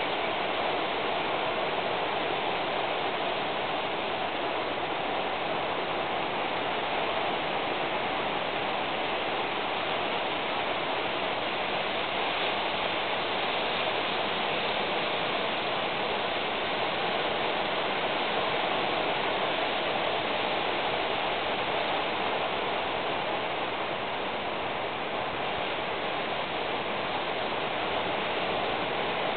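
Steady, even rushing noise with no single sound standing out.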